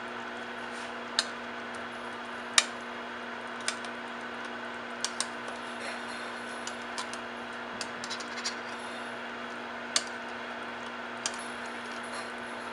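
About a dozen sharp, scattered clinks and taps of metal against a cooking pot, the loudest a few seconds in, over a steady background hum.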